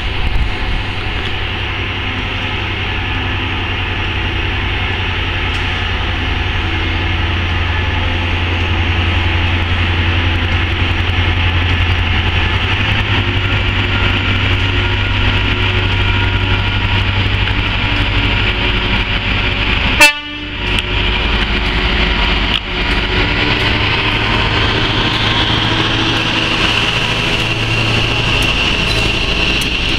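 Class 59 diesel-electric freight locomotive with its EMD two-stroke V16 engine working a heavy stone train, a steady low drone growing louder as it approaches, then the rumble and rail noise of the locomotive and hopper wagons passing close by near the end. A single sharp knock about two-thirds of the way in.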